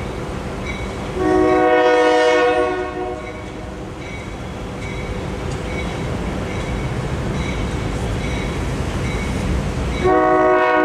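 A locomotive air horn sounds one long chord blast about a second in, and starts another near the end. Underneath is the steady rumble of an approaching train and the regular ding of the grade-crossing warning bell.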